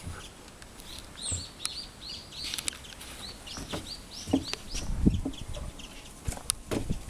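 Small bird chirping: a long run of short, high, arched notes, a few a second. A few sharp knocks and low thumps come in the second half, the loudest about five seconds in.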